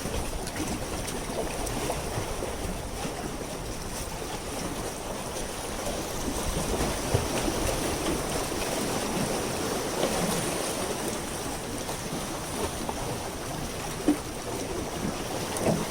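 Harbour water lapping and sloshing against the pier, with a few light knocks.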